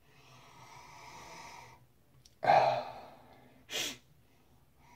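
A man sniffing a shaving soap: a long, soft inhale through the nose, then a louder sighing breath out about two and a half seconds in, a short sharp breath near four seconds, and another soft inhale at the end.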